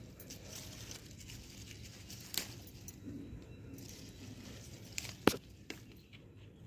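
Ripe Kashmiri chillies being hand-picked: soft rustling of the plant with a few sharp clicks, the loudest about five seconds in.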